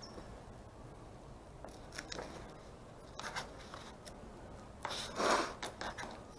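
Paper backing of a large vinyl decal rustling and crinkling as it is peeled back and bent by hand: a few short crinkles, the longest and loudest about five seconds in.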